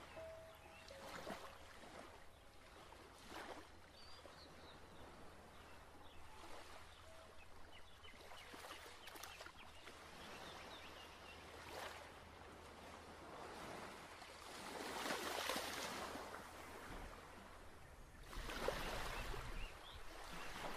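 Faint flowing water, rising and falling in gentle swells, with a few faint bird chirps.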